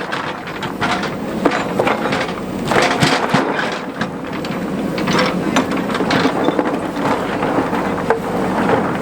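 JCB 3DX backhoe loader at work: its diesel engine runs steadily under a stream of irregular knocks, scrapes and crunches from the bucket working in sand.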